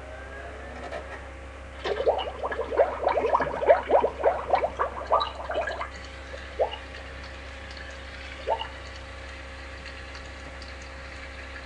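Beer-drinking sound effect from an iBeerKeg app played through an iPad's speaker: a quick run of bubbling glugs for about four seconds, then two single glugs, over a steady low hum.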